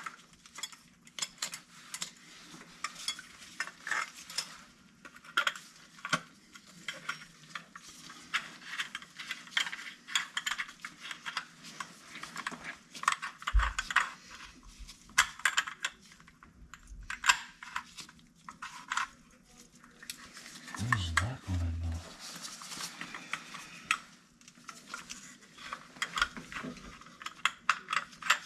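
Small metal tools and faucet hardware clinking, tapping and scraping in many short irregular clicks during hands-on plumbing work, with a couple of dull knocks.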